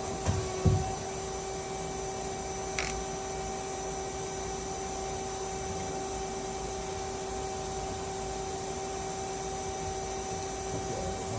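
Steady hum of powered-up machine-shop equipment, two held tones over a steady noise bed. A few soft knocks come just after the start and a short click about three seconds in.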